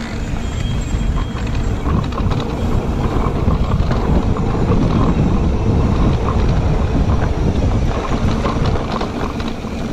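E-mountain bike riding fast over a dirt trail: tyres rolling on dirt, the frame and parts rattling over bumps with many small clicks, and heavy wind rumble on the handlebar camera's microphone.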